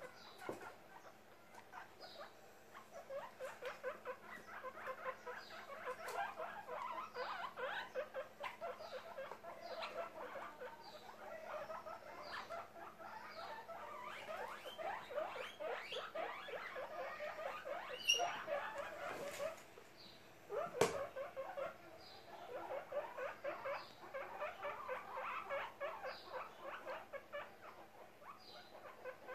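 Guinea pigs calling in rapid runs of short, clipped notes, several a second, in two long stretches with a brief lull about two-thirds of the way through. Two sharp clicks stand out near that lull.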